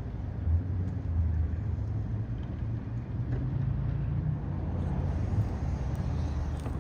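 Low rumble of a car engine running close by, rising slightly in pitch around three to four seconds in.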